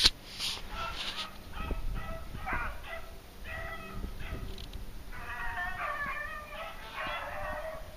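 Beagles howling and yelping in a run of short, pitched calls, with several dogs' voices overlapping in the second half.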